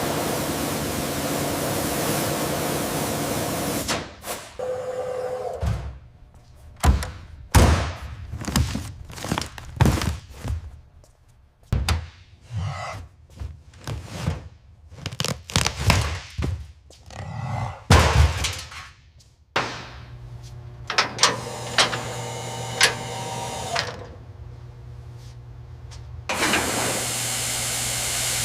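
Workshop sounds of hands-on work on a car. A steady loud hiss for the first four seconds gives way to a long run of irregular knocks and thunks. Then comes a steady low hum with scattered clicks, and the hiss returns near the end.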